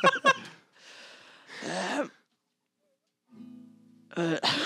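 Acoustic guitar: a chord rings out about three seconds in, then stronger strumming starts near the end.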